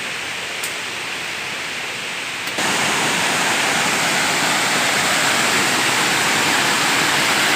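Steady rushing water of a river waterfall. About two and a half seconds in it suddenly becomes louder and brighter, then stays steady.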